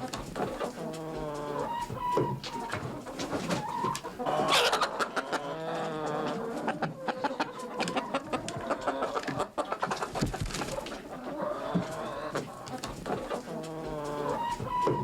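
A hen clucking repeatedly in short pitched calls, with scuffling and rustling as it moves about.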